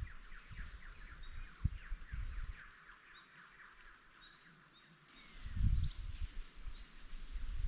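Bird calling in a fast series of short chirps that stops after about two and a half seconds and starts again near the end, over outdoor background noise. Low thumps come about two seconds in and again around six seconds in.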